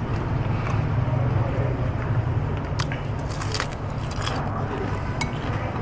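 Metal spoon and wooden chopsticks clicking and scraping against a ceramic soup bowl while eating noodle soup, with a cluster of clicks about three to four seconds in, over a steady low rumble of street traffic.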